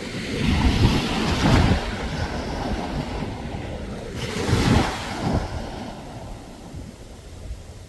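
Ocean waves washing onto the shore, with wind rumbling on the microphone. The surf swells twice, about a second in and again near five seconds, and eases off toward the end.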